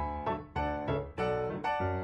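Background music: a piano tune played in a steady rhythm.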